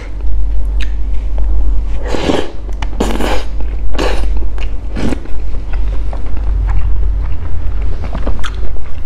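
Close-miked mouth sounds of a person eating a spoonful of sticky rice soaked in coconut sauce: several loud wet slurps between about two and five seconds in, then soft chewing with small wet clicks. A steady low hum runs underneath.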